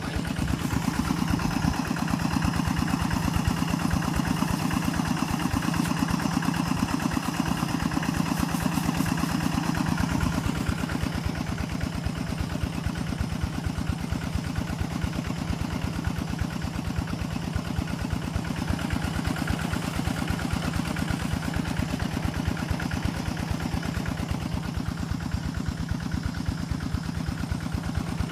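A small engine running steadily with a fast, even pulse, a little louder for the first ten seconds or so.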